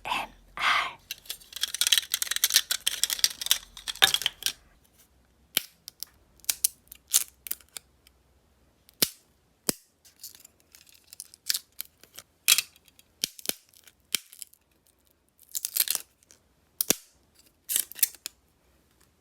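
Close handling noise from resin crafting: a couple of seconds of crinkly rustling, then scattered sharp clicks and taps.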